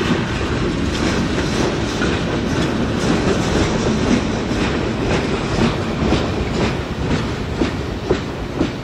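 Freight train's tank cars and boxcars rolling past at speed: a steady rumble of steel wheels on rail, with regular clicking as the wheels cross rail joints.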